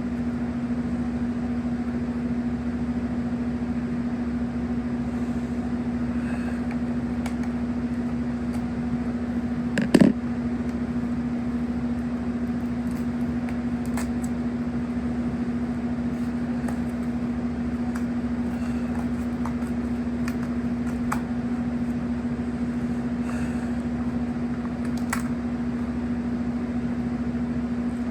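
Steady machine hum on one even pitch, with a few faint clicks and one louder knock about ten seconds in.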